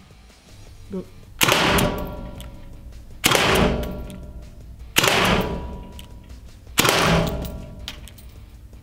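Umarex HDR 68 CO2-powered .68-calibre revolver fired four times, about one shot every two seconds. Each shot is a sharp crack followed by a ringing echo that fades before the next, with a faint click just before the first.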